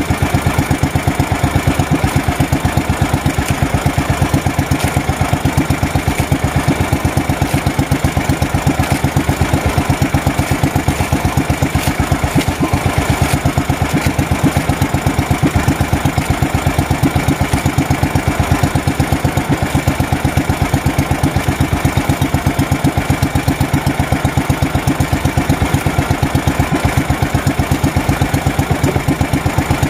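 Small fishing boat's engine running steadily at low speed, an even, rapid beat.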